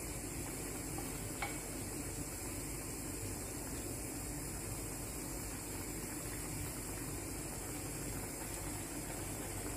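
Creamy milk sauce simmering steadily in a frying pan on a gas burner while a wooden spoon stirs through the chicken and carrots. There is one light click about a second and a half in.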